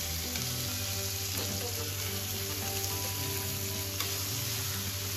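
Rib-eye steaks sizzling steadily as they sear in a hot frying pan with garlic cloves.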